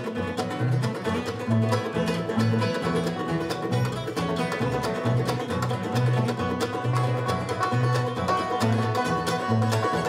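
Acoustic bluegrass band playing: fast banjo picking to the fore, with mandolin, acoustic guitar and upright bass notes underneath.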